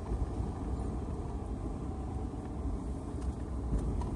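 Car being driven, heard from inside the cabin: a steady low engine and road rumble.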